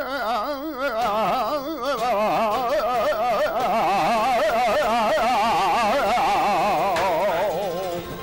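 Male flamenco singer holding a long, wavering melismatic note to close the cante, with wide vibrato, dying away about eight seconds in. A flamenco guitar accompanies.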